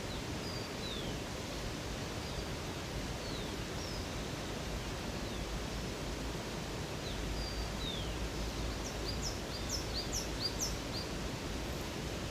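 Steady rush of running water with birds calling over it: short descending whistles scattered throughout, and a quick run of sharp downward notes in the last third.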